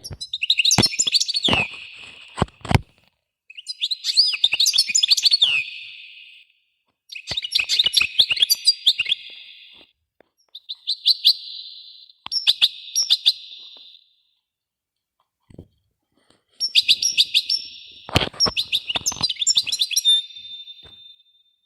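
Small birds chirping and twittering in bursts of two to three seconds, separated by short silent gaps. A few sharp knocks sound near the start and once more about three-quarters of the way through.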